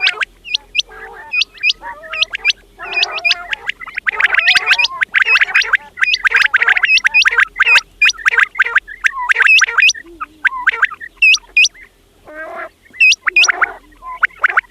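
Quails calling, several at once: rapid runs of short, sharp high notes over lower chattering calls, with a brief lull a little past the middle.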